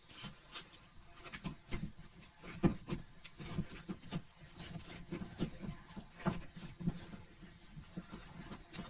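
Slime being squeezed and worked by hand, giving irregular small wet clicks and pops, a few a second.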